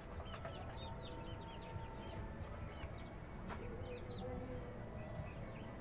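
Birds chirping: quick high chirps, several a second, thinning out after about two seconds, with a single sharp click about three and a half seconds in.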